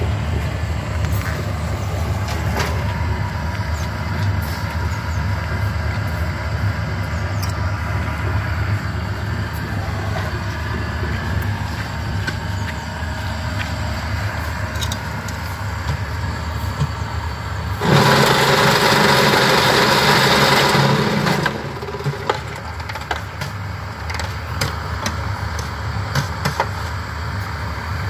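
Cement-brick yard machinery: a concrete mixer's motor runs with a steady low drone and scattered clanks. About two-thirds of the way in, a much louder harsh rattle sets in for about three and a half seconds, then stops, as the hollow-block making machine's vibrator compacts a mould.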